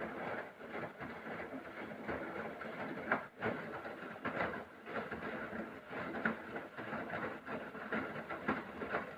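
Haier washing machine on its Express 15 programme, the drum turning the wash during the rinse: a dense churning noise with irregular knocks.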